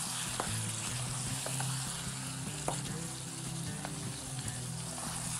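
Potatoes and eggplant in a spiced pickle masala sizzling in a pan on the stove while a spatula stirs them, with a few sharp clicks of the spatula against the pan. The dish is nearly cooked.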